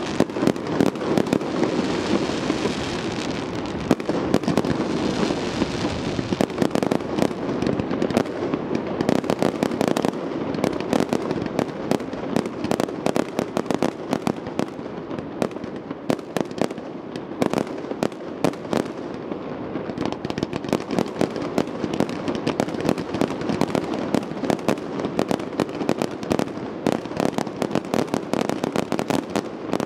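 Fireworks display: aerial shells bursting in quick succession with crackle, several sharp bangs a second.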